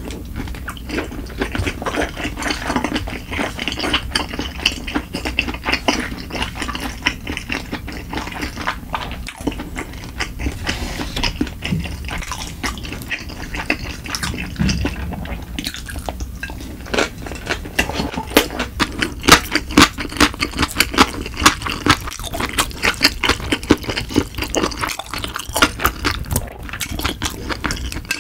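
Close-miked chewing of sushi: wet, sticky mouth sounds of rice and raw fish being chewed, a dense run of small clicks and smacks that grows louder and sharper in the second half.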